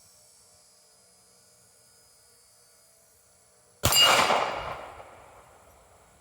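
A single 9 mm pistol shot about four seconds in, from a SAR 2000, with the steel target plate ringing after the hit and fading over about a second and a half.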